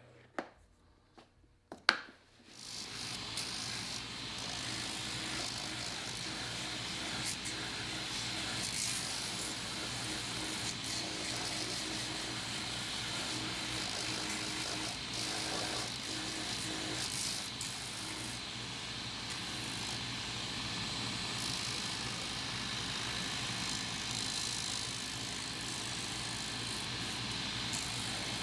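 A couple of sharp clicks, then an electric workshop machine starts about two seconds in and runs steadily with a low hum and a thin high whine.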